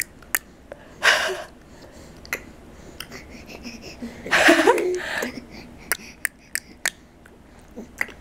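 A loose series of sharp clicks, several in quick succession near the start and again around six to seven seconds in. Between them come two breathy huffs from the baby: a short one about a second in and a longer, louder one around four to five seconds in that ends in a brief squeaky note.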